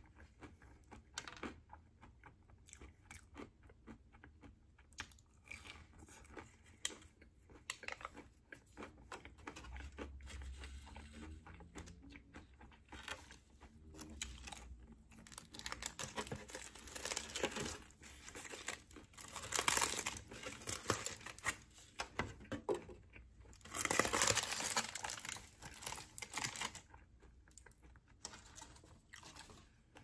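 Close-miked eating sounds: chewing and crunching food, a sauce packet being torn open, and a foam takeout box and food wrapping being handled. The loudest crinkling comes in two long bursts in the second half.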